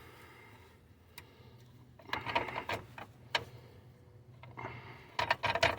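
Scattered metal clicks and knocks of hand tools working on a dirt bike's kickstand pivot bolt, starting about two seconds in and bunching up near the end, over a low steady hum.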